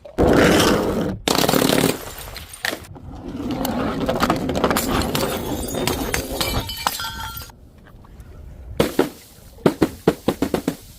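Glass bottles shattering: two loud crashes at the start, a longer stretch of breaking and crunching glass with ringing shards, then a quick run of sharp clinks near the end.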